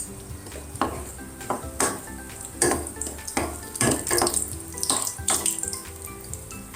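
Cashew nuts frying in ghee in a pan while a spoon stirs them: a series of scrapes against the pan over a hissing sizzle. Soft background music under it.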